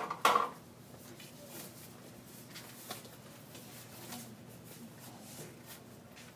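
Faint handling sounds of hospital equipment being cleaned and packed: scattered light knocks and clicks over quiet room tone, with one short louder clatter just after the start.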